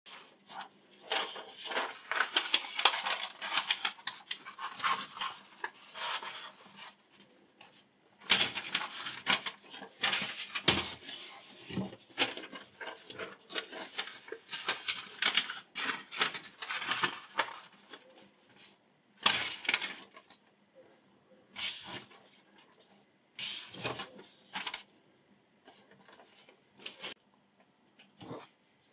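Sheets of paper rustling and being sliced against the edge of a freshly sharpened ZDP-189 steel chef's knife, in crisp bursts of crackling. The slicing runs almost continuously through the first half, then comes as a few separate short bursts.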